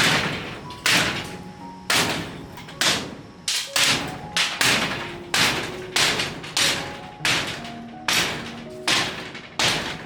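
A dozen or so hard blows, spaced a little under a second apart, each hit followed by a short ringing tone, like a tool striking a hard material.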